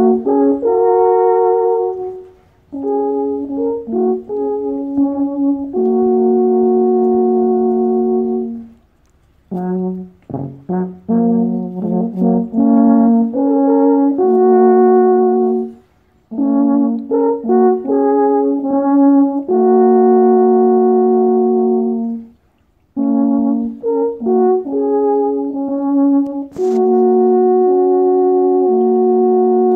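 Two alphorns playing a duet in harmony: phrases of quick notes that settle into long held two-note chords, with short breaths of silence between phrases. A single sharp click near the end.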